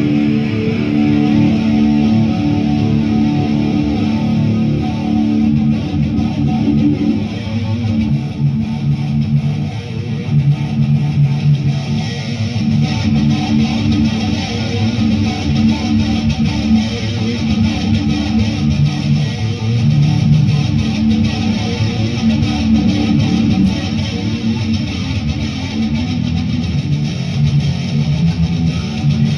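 Electric guitar played through an amplifier, continuous strummed chords and riffs during a sound check.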